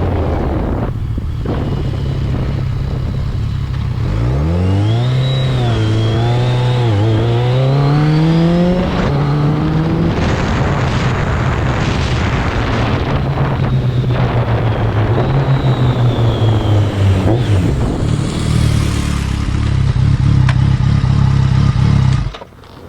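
BMW K1200GT inline-four motorcycle engine running through an aftermarket Delkevic exhaust. A few seconds in it accelerates, the pitch rising in steps with brief dips as it shifts up through the gears, then it runs steadily at speed. The sound drops away suddenly near the end.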